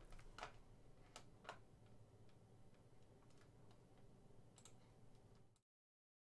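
Near silence: faint room tone with a few soft clicks in the first second and a half, then dead silence from about five and a half seconds in.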